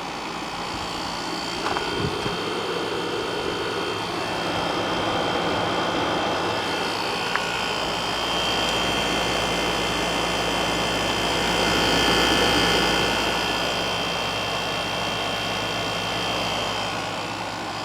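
1996 Whirlpool Coolerator 7,000 BTU room air conditioner running: fan blowing with the compressor humming steadily underneath, slowly swelling and easing in loudness. The compressor is not the quietest, but not the worst either.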